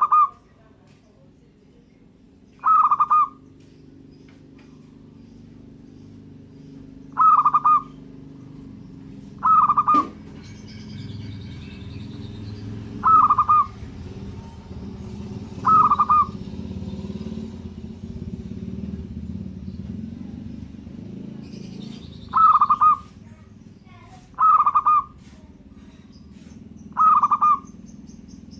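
Zebra dove (perkutut) cooing: nine short, loud phrases repeated every two to five seconds, over a low steady background rumble. A single sharp click comes about ten seconds in, and fainter high chirps of other birds can be heard.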